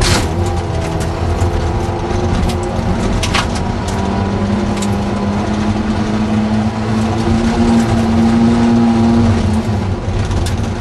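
Ford Anglia rally car's four-cylinder engine running hard, heard from inside the cabin while driving fast on a gravel road. Its pitch climbs steadily from about four seconds in and drops back near the end. A couple of sharp knocks come through, one at the start and one about three seconds in.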